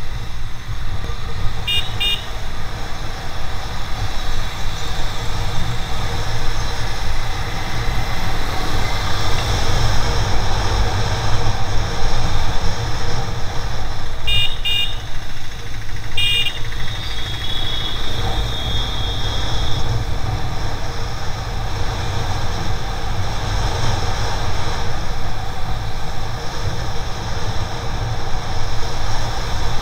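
Motorcycle riding through traffic, heard from a camera on the bike: heavy wind rumble on the microphone over the engine and road noise. Quick double horn beeps come about 2 s and 14 s in, another pair near 16 s, then one high horn tone held for about two seconds.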